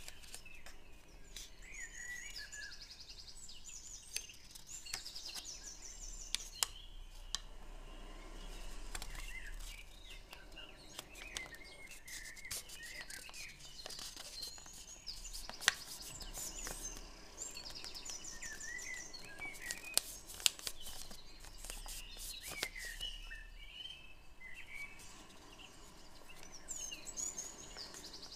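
Small birds chirping and trilling again and again, with the crackle and scattered sharp clicks of origami paper being creased and folded by hand.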